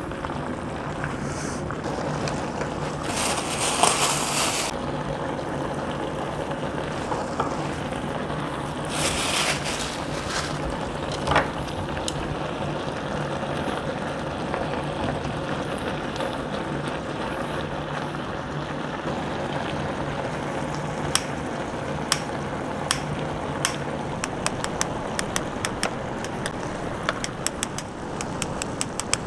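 Beef bulgogi and vegetables simmering and bubbling in broth in a wide pan, stirred with a wooden spoon and chopsticks, over a steady low hum. There are two brief hissing surges, about 3 s and 9 s in. In the last third comes a quickening run of sharp clicks as kitchen scissors snip long rice cakes into pieces in the pan.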